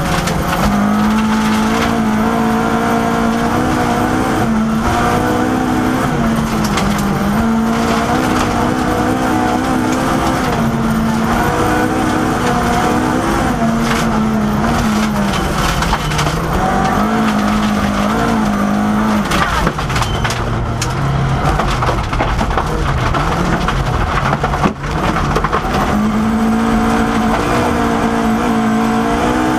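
Ford Escort Mk II rally car's engine, heard from inside the cabin, revving hard and dropping back through gear changes as it is driven at stage speed on a gravel road. About two-thirds of the way through the revs fall low for a few seconds before climbing again.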